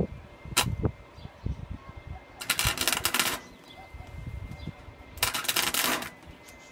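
Gasless flux-cored MIG welder arc crackling in two short bursts of about a second each, like tack welds. A couple of sharp knocks come near the start.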